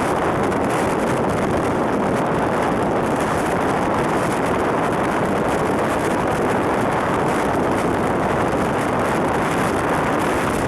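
Steady, loud rushing noise of heavy rain and floodwater on a flooded highway, with vehicle engines mixed in.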